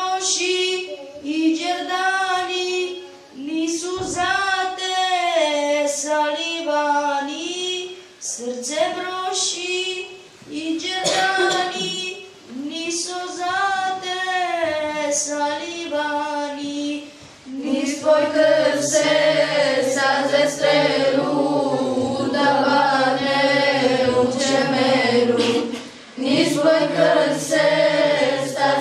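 Children's and girls' voices singing a religious song together, unaccompanied, in phrases of a few seconds with short breaths between. About 18 seconds in, lower men's voices join and the singing becomes fuller and more continuous.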